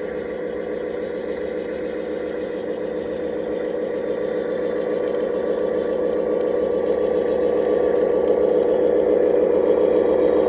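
Electric motors and gearboxes of G scale model diesel locomotives running with a steady whine as they push a snowplow, growing louder as the train comes closer.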